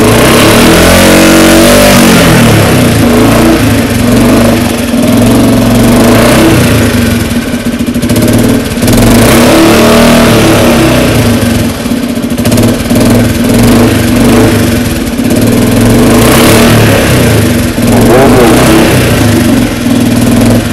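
KTM RC 200's single-cylinder engine revved loudly while the bike stands still, its pitch rising and falling with several blips of the throttle.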